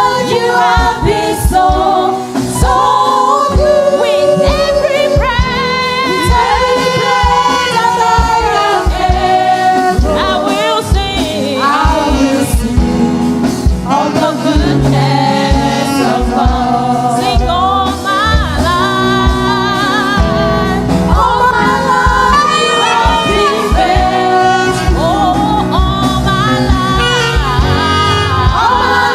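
Gospel worship song sung by a church praise team with several voices, over instrumental accompaniment with a steady beat.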